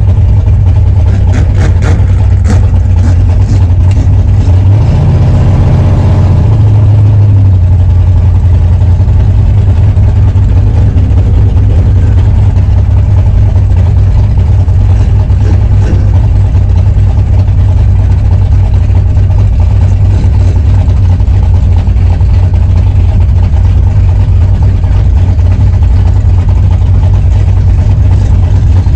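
1963 Chevrolet Impala drag car's engine idling loudly, heard from inside the cabin, with a brief rise in revs about five seconds in before it settles back to a steady idle.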